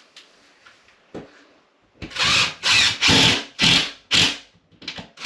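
Power drill/driver running in short repeated bursts, about five of them in three seconds, driving screws to fasten a drywall panel. A single knock about a second in comes before the bursts start.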